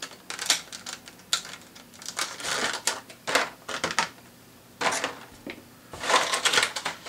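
Thin clear plastic blister packaging crackling and clicking in irregular clusters as hands handle and squeeze it.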